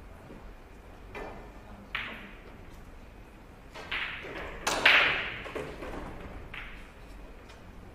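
A few sharp knocks and taps, each with a short ringing tail; the loudest come about five seconds in.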